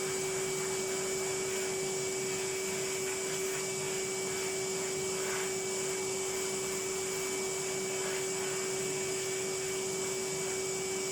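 Vacuum cleaner running steadily, a constant motor noise with a steady tone in it.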